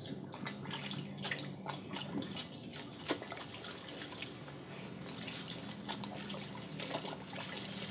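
Hands working in a basin of water: light trickling and dripping with small, irregular clicks and splashes.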